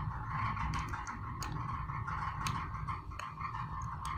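DT830D digital multimeter's continuity buzzer giving a steady beep while its probes bridge the phone earpiece line, the sign of a closed path through the coil. Light clicks of the probe tips on the board come here and there.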